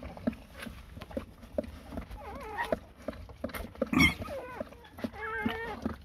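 Newborn Laika puppy squealing in short, high, wavering cries, twice, against a run of quick wet clicks and smacks. A louder sharp burst comes about four seconds in.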